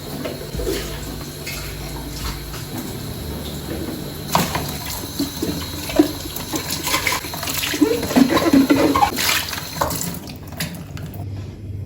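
Water running from a kitchen tap into a sink, with clinks and knocks of things being handled in it; the running water stops shortly before the end.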